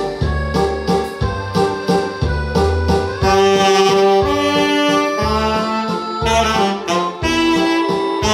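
Saxophone playing the melody of an Italian popular song over a keyboard accompaniment with a bass line, moving into strong long held notes about three seconds in.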